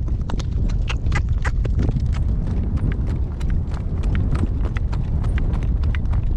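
Driving horse's hooves beating in a steady trot on a dirt road, a quick run of sharp strikes over a steady low rumble.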